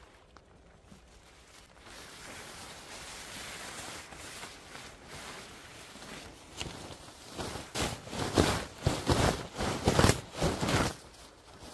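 A tarp rustling as it is pulled off its ridgeline, then crinkling in loud, irregular bursts as it is bunched up and gathered in the arms during the last few seconds.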